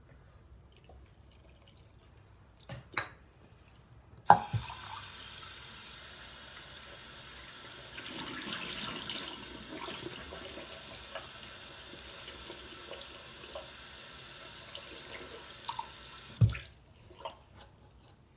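Bathroom sink tap turned on with a sharp knock about four seconds in, water running steadily into the basin for about twelve seconds, then turned off with another knock.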